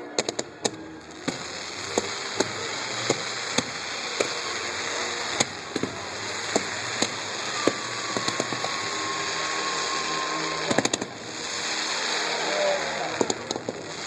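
Fireworks going off: sharp bangs at irregular intervals over a steady hiss. A long, slightly falling whistle comes about eight seconds in, followed by a quick burst of crackling.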